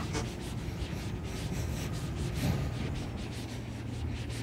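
Handling noise from a phone microphone rubbing as its holder walks along a paved sidewalk, with soft regular footsteps about twice a second over a steady low street rumble.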